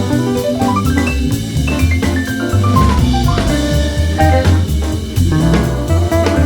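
Background music: an upbeat jazz-style tune with a drum kit, a walking bass line and a melody that climbs in quick steps, then steps back down.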